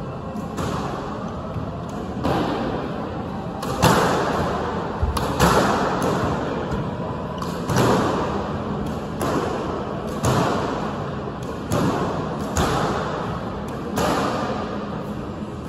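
A squash ball struck by a racket and smacking off the court walls again and again, about one hit every second or so, each echoing in the enclosed court.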